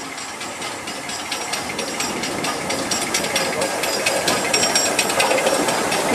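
LMS Black Five 4-6-0 steam locomotive 44871 running slowly past, steam hissing over a rapid metallic rattling clatter, growing louder as it draws near.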